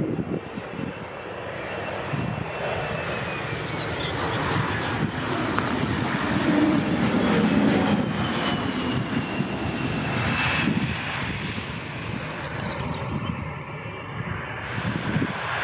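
Bombardier CRJ-900LR's twin rear-mounted GE CF34 turbofans on landing and rollout: a steady jet rush with a thin whine falling in pitch, loudest about halfway through as the jet rolls past on the runway, then easing as it moves away.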